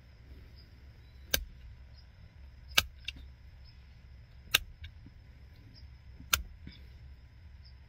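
Pressure flaking of European ballast flint with a hand-held pressure flaker: four sharp clicks, one every one and a half to two seconds, each a flake snapping off the edge of the arrowhead, some followed by a fainter tick.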